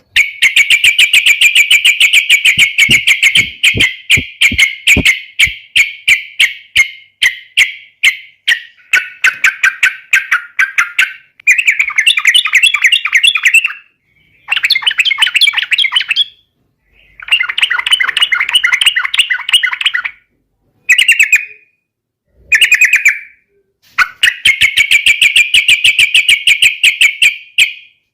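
Yellow-vented bulbul (trucukan) singing loudly in fast, chattering phrases of rapid notes. A long run opens the passage, followed by shorter bursts with brief pauses between them, and another long run near the end.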